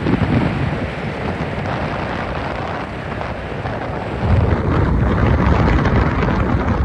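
Wind buffeting the microphone during a downhill ski or snowboard run: a rough, rushing rumble that gets louder about four seconds in.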